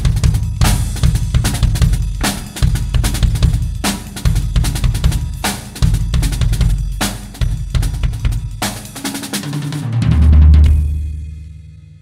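Pearl drum kit with Paiste cymbals played in a fast solo: kick drum, snare, toms and cymbal crashes. About ten seconds in it ends on a loud low hit that rings out with the cymbals and fades away.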